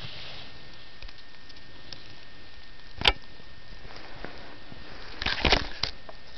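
Steady hiss on the microphone, with one sharp click about three seconds in and a short burst of knocks and rustles near the end from the camcorder being handled and swung up toward the sky.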